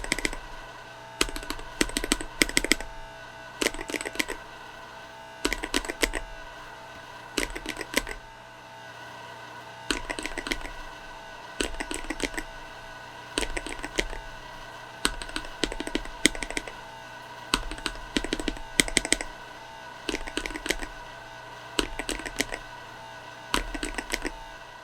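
Mechanical keyboard fitted with Akko CS linear switches being typed on in short bursts of several keystrokes, each burst about a second long with brief pauses between them.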